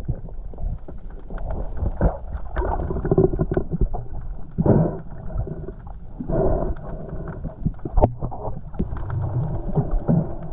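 Muffled underwater sound picked up by a camera in a waterproof housing while a spearfisher swims: water rushing and sloshing in swells, with a few sharp knocks.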